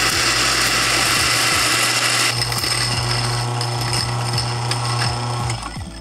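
Electric espresso burr grinder running through a single dose of beans: a steady motor hum under a dense grinding hiss. The hiss thins a little past two seconds in as the dose runs low, and the motor stops shortly before the end.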